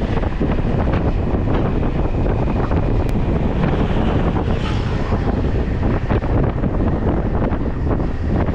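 Wind buffeting the microphone of an action camera on a moving motor scooter: a loud, steady, fluttering low rumble that hides most other sound. A brief brighter hiss comes a little under five seconds in.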